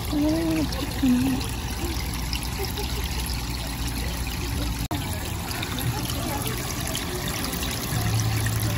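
Water from filter outlets pouring and trickling into shallow turtle tanks, a steady wash of running water.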